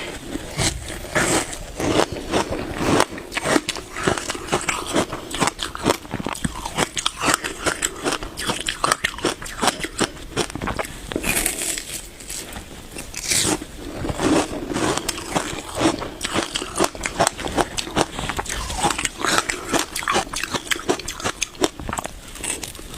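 Close-miked biting and chewing of frozen passion fruit ice: a steady run of crisp crunches and crackles as the ice is chewed, with a few louder bites standing out about a second in, around halfway and at the very end.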